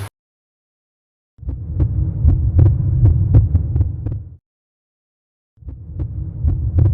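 A train running, a low rumble with sharp rhythmic clicks about four a second, typical of wheels passing over rail joints. It comes in two cut-in stretches with dead silence before and between them.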